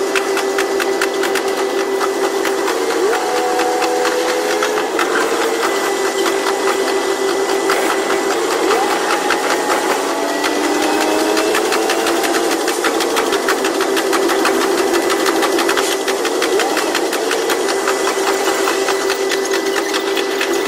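KiHa 122 diesel railcar running: a steady engine drone with tones sliding up and down as the engine and transmission change speed, over a fast, even clatter of the running gear on the track, all played back at double speed.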